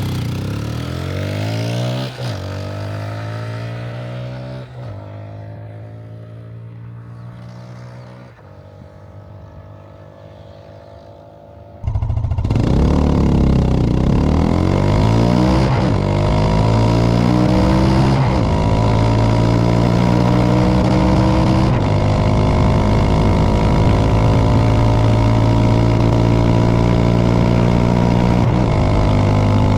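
Italika DM150's small 150 cc single-cylinder engine: for the first twelve seconds its note falls and fades as the bike slows, changing at each of a few gear shifts. Then it cuts to a much louder take with the engine running hard, its pitch climbing through several gear changes and holding steady.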